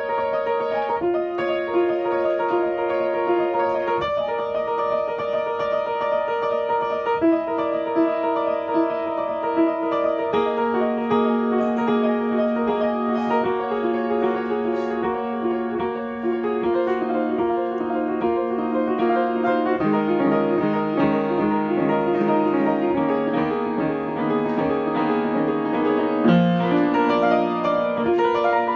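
Upright piano played with both hands: a continuous passage of chords and moving notes in the middle register, with lower notes joining about two-thirds of the way through.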